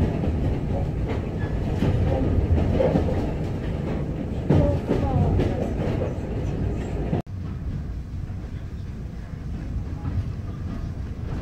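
Running noise inside a railway passenger coach on the move: a steady low rumble of wheels on track with some clicking over rail joints. About seven seconds in, the sound cuts off abruptly and resumes a little quieter.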